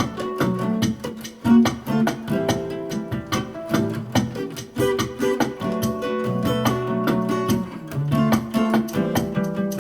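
Music: a guitar playing a quick run of plucked and strummed notes.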